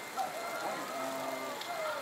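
Indistinct voices of people talking in the background, with a faint steady high tone underneath.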